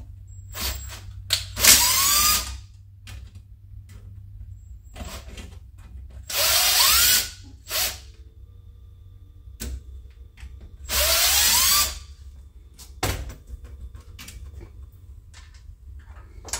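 Cordless drill with a Torx bit backing out the screws of a VCT cam phaser unit held in a vise. There are three runs of about a second each, the motor's whine rising as it spins up, with a few short trigger blips between them.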